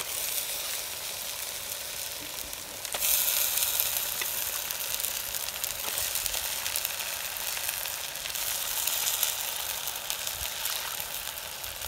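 Mutton pieces frying in hot oil with ginger-garlic and chilli powder: a steady sizzle that gets louder about three seconds in, as the meat takes up the heat.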